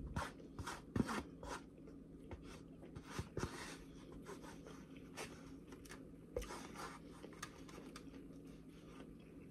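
Faint eating sounds close to the microphone: irregular crunches, clicks and light scrapes from eating a beet and cucumber salad, coming in scattered clusters.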